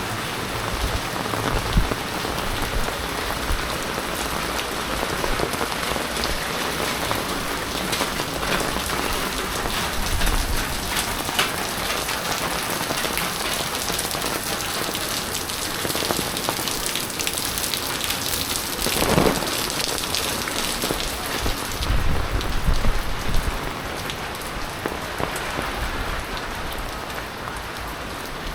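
Heavy typhoon rain falling steadily, with many drops pattering on nearby surfaces. A brief louder swell comes about two-thirds of the way through, and a low rumble follows soon after.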